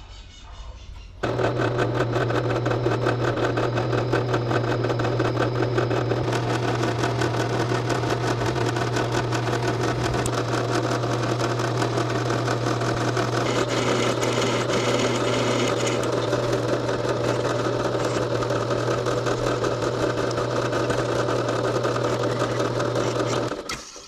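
Benchtop drill press running with a steady motor hum as its bit drills handle-pin holes through a leaf-spring steel knife blank. It starts about a second in and stops just before the end.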